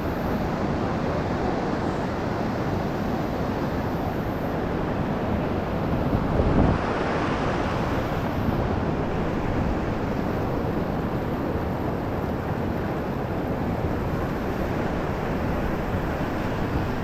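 Steady rushing noise of a motorized canoe running up through waterfall rapids: the boat's engine blended with fast-flowing water and wind on the microphone, swelling briefly a little past a third of the way through.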